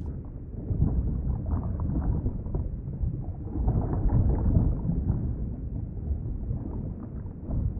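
Underwater ambience: a muffled, steady low rumble of moving water.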